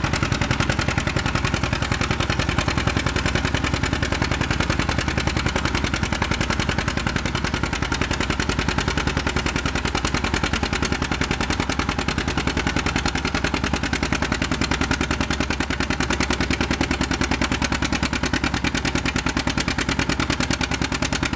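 Two-cylinder John Deere tractor engine working hard under load as it drags a pulling sled, its exhaust popping in a fast, even beat.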